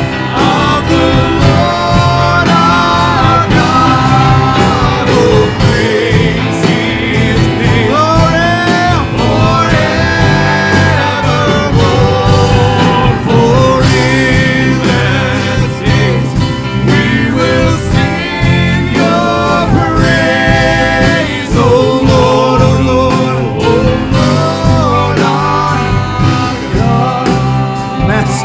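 Live church worship band playing a gospel hymn, with singing over guitar-led accompaniment.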